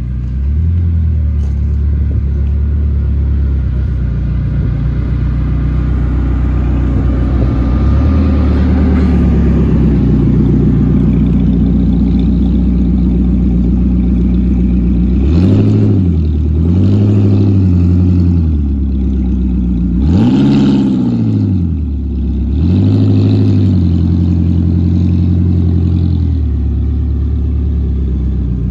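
Koenigsegg Gemera's V8 engine idling steadily, then revved in four short blips in the second half, the third reaching the highest pitch.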